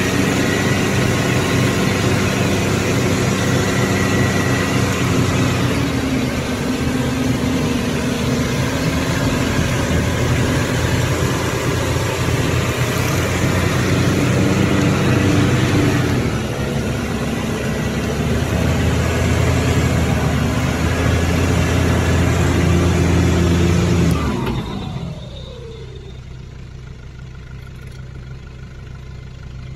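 Nissan Patrol Y61 4x4 engine revving hard under load as the truck is pulled out of deep mud on a tow strap, the revs rising and falling. Near the end the revs fall away and it settles to a quiet idle.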